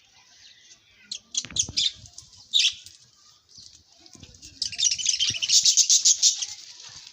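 Small birds chirping in short clusters of high chirps, then a dense, rapid run of chirping from about two-thirds of the way through.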